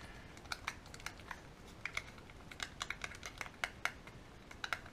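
Airbrush paint being stirred in a small plastic mixing cup: a stirrer clicks and taps against the cup wall in quick, irregular ticks, several a second.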